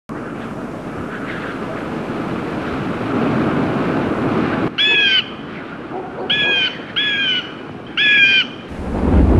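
Wind blowing for the first few seconds, building and then cutting off abruptly; then a bird calls four times in short calls. Near the end a deep rumble of thunder begins.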